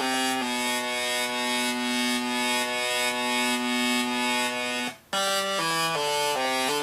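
Electronic sound-effects synthesizer putting out a buzzy, reedy tone. It steps quickly between notes, holds one long note for about four seconds, cuts out briefly near the five-second mark, then steps back and forth between notes again.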